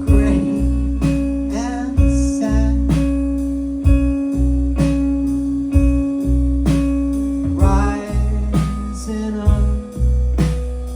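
Live indie band playing a slow song: a drum beat about once a second under a held low note that shifts pitch about eight seconds in, with electric guitar and bass, and a singing voice coming in twice.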